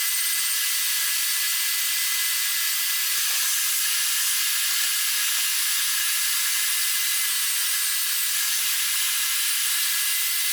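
A steady, even hiss with no rhythm or knocks, all in the high range.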